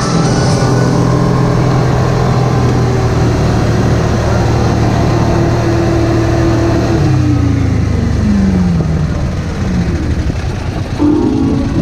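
Side-by-side UTV engine running steadily while driving, with the rumble of the ride around it. Past the middle its pitch drops over about three seconds as the machine slows.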